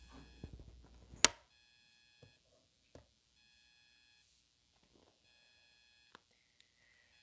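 Soft modelling clay being picked up and pressed by fingers close to a small microphone: a sharp click about a second in, then a few faint soft taps and presses. A faint electronic beeping tone comes and goes in the background.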